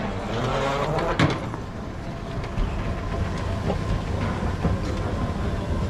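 Escalator running, a steady low mechanical rumble with a faint steady hum, and a single sharp clack a little over a second in.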